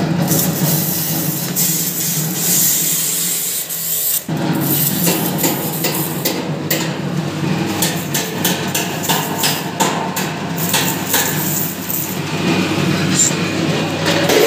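Ribbon blender's electric motor and gear drive running with a steady hum, turning the ribbon agitator in an empty stainless-steel trough. Irregular knocks and clicks sound over it, thickest from about four to twelve seconds in.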